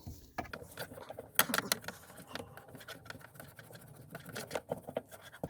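Irregular light clicks and rattles of small metal parts being handled, with the transmission's locking pin being worked out of the shift housing. A louder cluster of knocks comes about a second and a half in.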